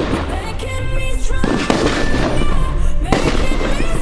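Röder Feuerwerk 'Disco' firework battery firing: aerial shells burst with a crackle several times, about a second and a half in and again near three seconds. Electronic dance music plays throughout.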